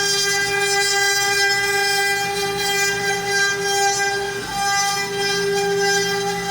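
CNC router spindle running at a steady high-pitched whine while it cuts wood, with a brief dip in pitch and level about four and a half seconds in.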